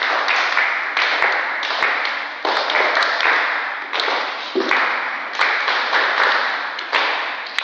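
A group of people clapping together in a steady beat, a little faster than one clap a second, echoing in a hall, with a few sharp taps over it.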